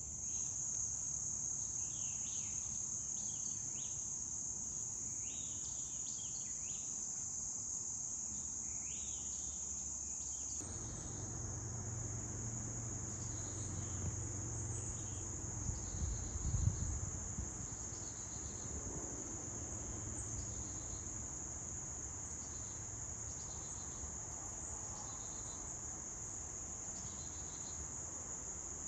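Steady high-pitched chorus of crickets or katydids, with shorter chirping calls over it in the first third. A brief low thumping about halfway through is the loudest moment.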